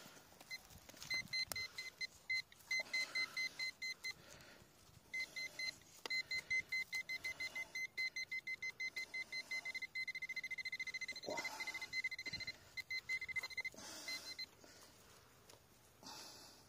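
Handheld metal-detecting pinpointer probe beeping in quick pulses, several a second, as it is worked through the soil over a shallow target. The pulses merge into a steady tone for about two seconds past the middle, then break up again and stop about three-quarters of the way through. Faint scraping of dry soil comes with it.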